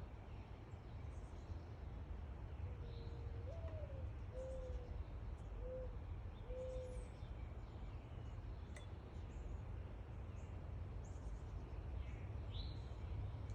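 A dove cooing one low five-note phrase, the second note rising, with faint high chirps of small birds scattered through it over a steady low background hum.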